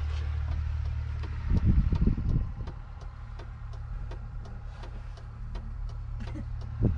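A 1991 John Deere 3050's 5.9-litre six-cylinder diesel engine idling steadily, with a brief louder low rumble about a second and a half in.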